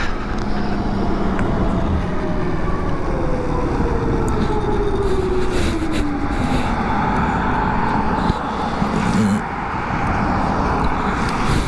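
2012 Zero DS electric motorcycle's motor whine, falling steadily in pitch as the bike slows for a turn, under constant wind and road noise on the microphone. About eight seconds in the whine comes back higher as the bike speeds up again.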